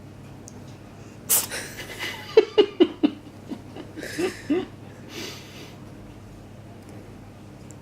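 A cat sneezes once, sharply, about a second in, followed by a person's short, choppy bursts of laughter.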